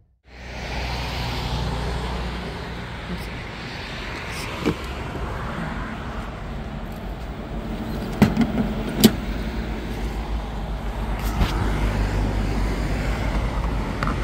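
Skoda Enyaq electric car driving, with a steady road and tyre rumble and a few short clicks.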